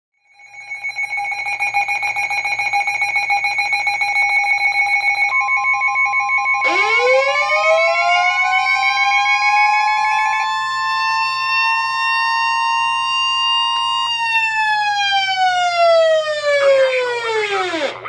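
NOAA Weather Radio receivers going off for a warning: a rapid electronic beeping alarm, then the broadcast's steady warning alarm tone joining about five seconds in, and a siren-style alert that winds slowly up from about six seconds in and falls away near the end. The beeping stops about halfway and the steady tone cuts off as the siren begins to fall.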